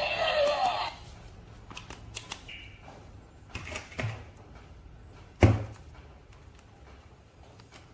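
Light plastic clicks and taps from handling a toy figure and its packaging, with one sharp knock about five and a half seconds in. Background music for the first second.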